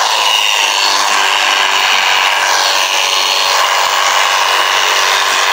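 Cordless battery pressure washer running steadily, its motor and pump humming under the hiss of the water jet spraying onto a car's windshield and hood to rinse off soap.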